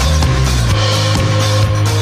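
Instrumental background music with a heavy bass line.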